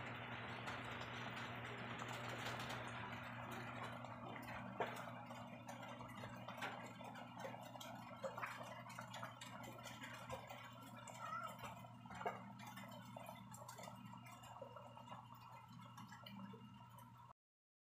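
Faint room tone: a steady low hum and a soft hiss that fades over the first few seconds, with scattered light clicks and taps. It cuts off suddenly near the end.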